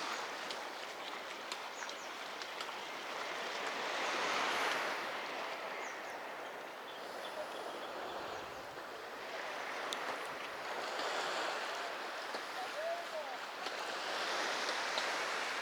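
Sea surf breaking and washing up the beach, the rush of water swelling and fading several times.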